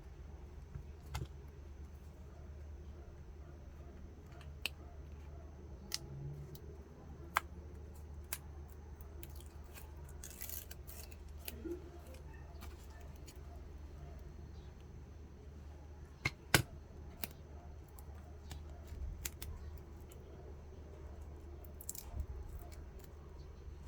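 Irregular sharp clicks and snips from small objects being handled, over a low steady hum.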